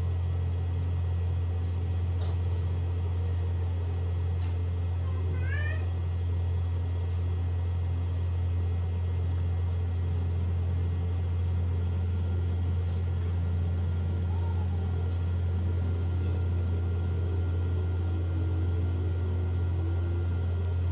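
A steady low hum, with a brief high rising chirp about six seconds in.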